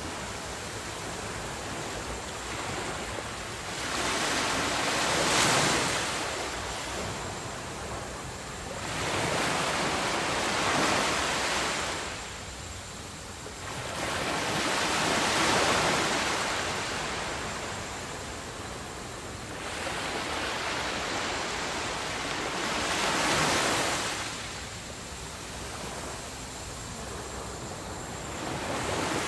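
Heavy ocean surf breaking on a beach, each wave rising to a rushing crash and washing back every few seconds.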